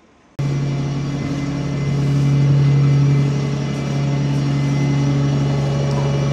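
Bus engine running, heard from inside the passenger cabin: a steady low hum that starts abruptly a moment in and swells briefly about two seconds in.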